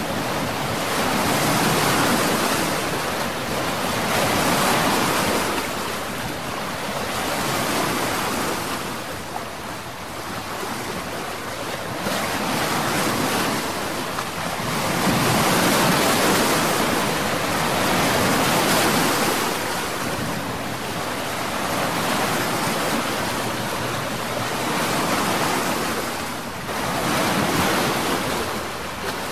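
Wind buffeting the microphone over the rush of water churned up by a moving motorboat, swelling and easing every few seconds.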